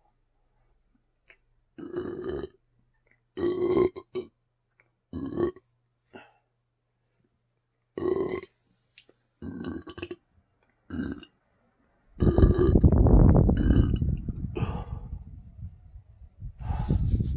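A person belching from an overfull stomach: several short burps, then a long, loud, deep burp starting about twelve seconds in and lasting some four seconds, and another beginning near the end.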